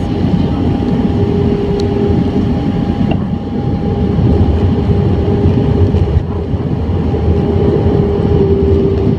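Airbus A320 cabin noise heard from a window seat over the wing during descent: a steady roar of engines and rushing air with a constant hum running through it.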